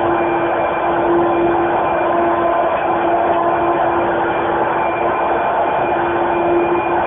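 Kenmore Heavy Duty Plus twin-fan vacuum cleaner running, a loud steady motor whine that holds one pitch.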